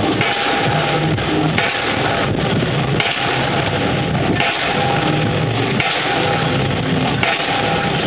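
Pile driver's hammer striking a pile in a steady rhythm, one sharp blow about every 1.4 seconds, six in all, over continuous machine noise from the rig.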